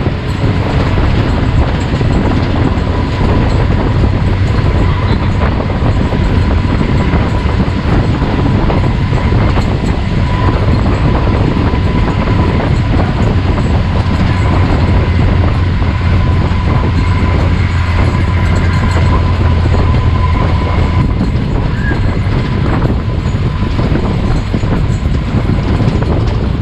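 A vehicle running steadily: a low rumbling hum with a faint steady whine above it.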